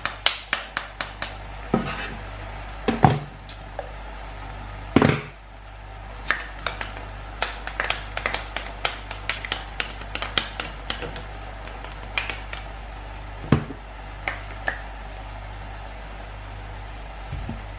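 Knife blade scraping and tapping crushed garlic out of a metal garlic press over a stainless steel frying pan: a long run of sharp metal clicks and clinks, with a few louder knocks.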